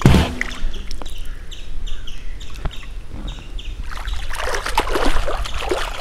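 A splash into pond water, then lighter water movement, and from about four seconds in, bare feet kicking and splashing in the water. Short high chirps repeat a few times a second in the background.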